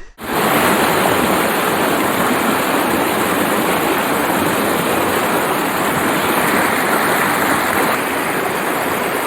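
Waterfall and river rushing: a loud, steady roar of falling water that starts suddenly.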